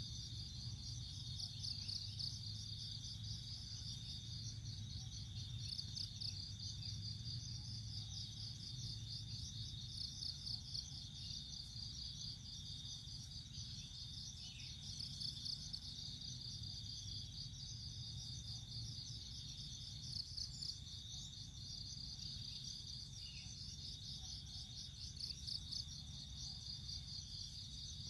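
Steady high-pitched insect trilling: a fast, pulsing chorus that runs without a break, over a low hum.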